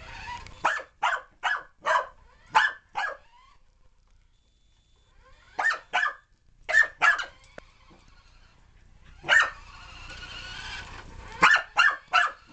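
Corgi puppy barking at a remote-control car: short, sharp barks in quick volleys, about six in the first three seconds, a few more in the middle, and three close together near the end.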